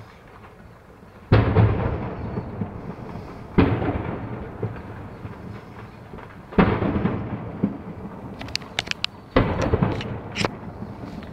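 Four heavy explosions from a burning warehouse fire, a few seconds apart, each a sudden boom followed by a rumbling echo that fades over a second or two. A few sharp cracks come around the last blast.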